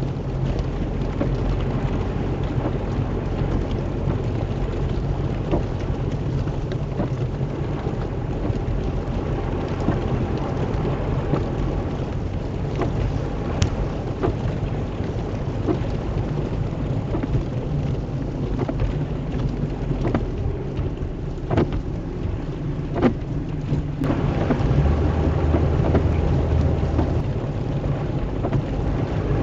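Steady rain with scattered sharp clicks of drops striking, over a low steady hum.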